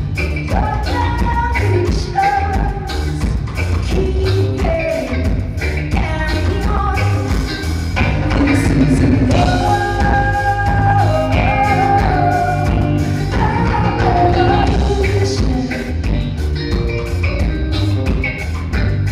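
Live band performing: a woman singing into a microphone over electric guitar, bass and drums with a steady beat.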